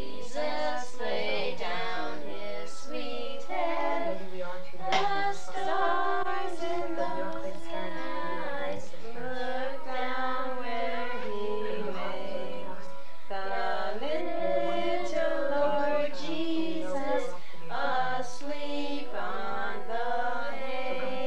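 Children singing a Christmas carol together in slow, held notes.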